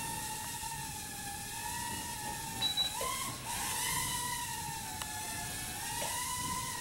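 Blade Pico QX nano quadcopter's four tiny motors and propellers whining in flight. The steady high hum wavers in pitch with the throttle, dipping and rising about three seconds in.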